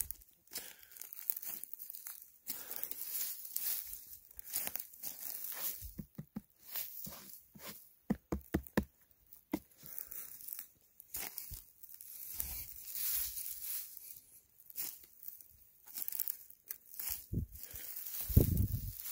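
Dry pine needles crunching and rustling under feet and hands. Near the end, a low solid thud as fingers tap the cap of a spring king bolete: a solid sound that indicates the mushroom is firm inside.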